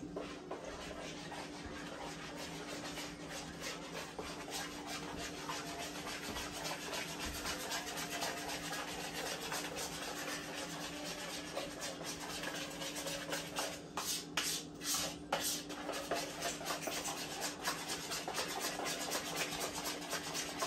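Continuous scraping and rubbing of kitchenware, a quick run of fine strokes that slowly grows louder, with a few sharper clicks about two-thirds of the way in. A faint steady hum runs underneath.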